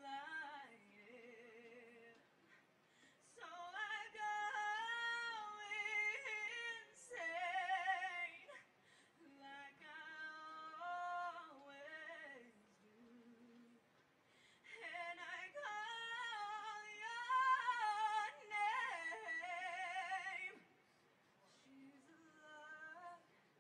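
A woman singing solo and unaccompanied, in long phrases with strong vibrato on held notes and short pauses between them; the loudest phrase comes in the second half.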